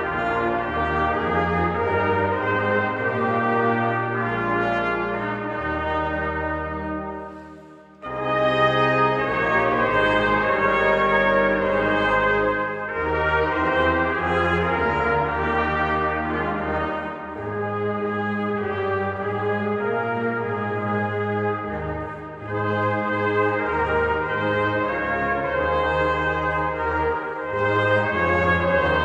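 Brass choir of trumpets, trombones and tuba playing a slow piece in full chords. A phrase fades away about seven seconds in, then the whole ensemble comes back in loudly, with short breaks between the later phrases.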